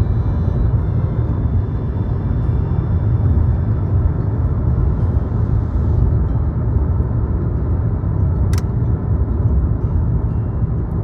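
Steady low rumble of a car driving on the road, heard from inside the cabin, with one sharp click about eight seconds in.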